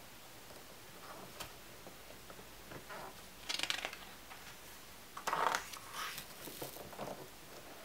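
A page of a hardbound photo book turned by hand: a short rustle about three and a half seconds in as the page is lifted, then a louder paper swish as it turns over a little after five seconds, followed by lighter rustling as it settles.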